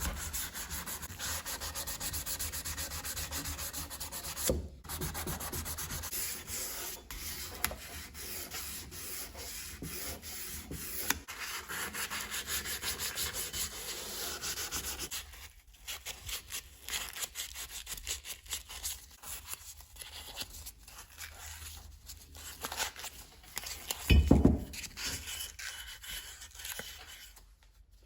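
Hand sanding of the brass body of an Allpax gasket cutter, with quick back-and-forth rubbing strokes. The strokes grow sparser and quieter about halfway through, and there is a single thump near the end.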